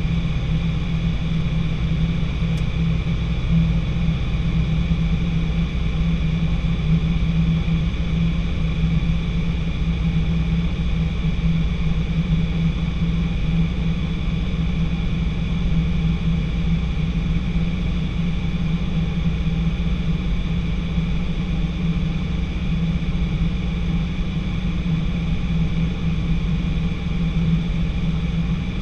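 Engine of a small training aircraft in flight, heard inside the cockpit: an unbroken low drone at constant power, with a thin steady high whine over it.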